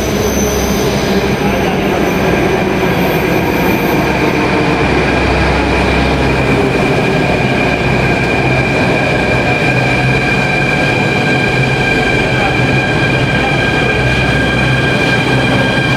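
Delhi Metro train running at speed: a steady rumble under a high whine made of several held tones.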